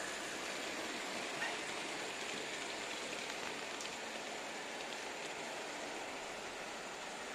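Märklin model diesel shunter and its car-transporter wagons rolling along model railway track: a steady whirring, rushing noise from the small electric motor and the wheels on the rails, with a faint click about one and a half seconds in.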